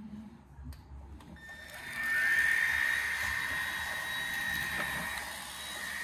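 Cordless stick vacuum (Tefal X-Force Flex) motor switching on about a second and a half in, its pitch rising as it spins up, then running with a steady high-pitched whine.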